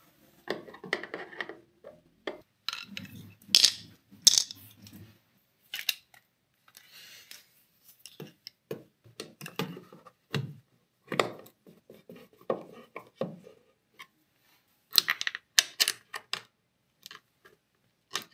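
Irregular clicks, taps and small clatters of a screwdriver and mounting hardware as a fishfinder transducer mount is fastened to the underside of a kayak hull.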